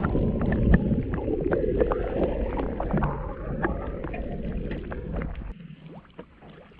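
Muffled underwater rushing and dense crackling heard through a camera held below the sea surface. It cuts off abruptly about five and a half seconds in, leaving much quieter sound.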